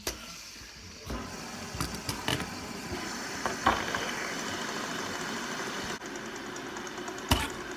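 Several fidget spinners spinning flat on a wooden tabletop with a steady whir. A few sharp clicks and knocks come as fingers flick them and they strike the table, the loudest near the end.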